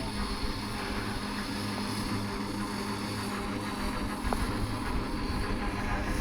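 Steady drone from the Rx-class steam locomotive RX207, a constant low hum under a hiss.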